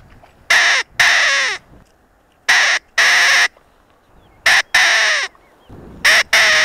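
Pheasant call (キジ笛) blown in pairs, a short harsh note then a longer one, repeated about every two seconds; it is sounded to lure green pheasants out of cover.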